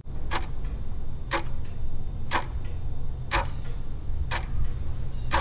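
Clock ticking sound effect: a sharp tick about once a second, with fainter ticks between them, over a steady low hum.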